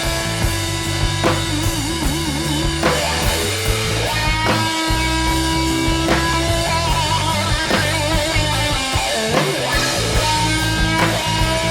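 Live rock trio playing an instrumental passage: guitar playing long held notes with wide vibrato over bass and drums.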